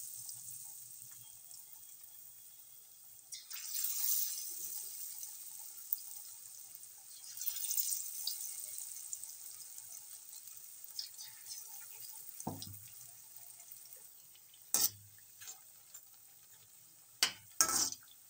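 Batter-coated potato slices deep-frying in hot oil in an iron kadhai: a steady sizzle that swells twice as more slices are slipped in. Near the end a metal spatula clinks sharply against the pan a few times.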